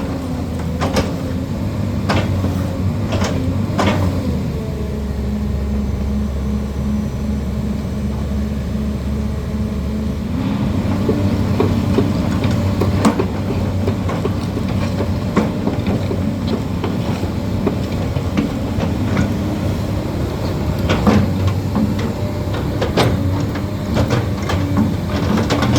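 Hyundai Robex excavator's diesel engine running steadily. Its pitch drops for several seconds and then picks back up about ten seconds in. Sharp metal clanks come now and then.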